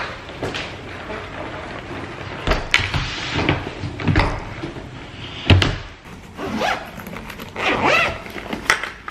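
A red hard-shell suitcase being handled: its zipper is pulled and the case is set down on a counter with several sharp thunks, the loudest about five and a half seconds in, followed by scratchy rummaging through its contents.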